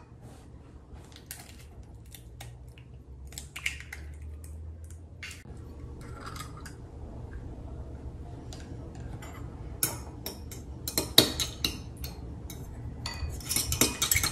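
Eggs being cracked against a bowl and dropped in, heard as scattered taps and clicks. Near the end a fork starts whisking the eggs, a fast run of clinks against the bowl.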